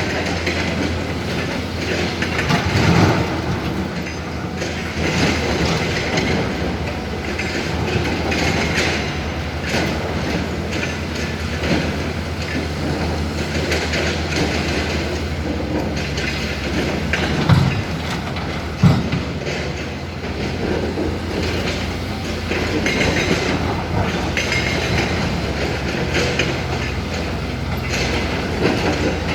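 Hyundai HX220L hydraulic excavator working: its diesel engine runs steadily under a continuous metallic clanking and squealing, with two sharp knocks a little past the middle.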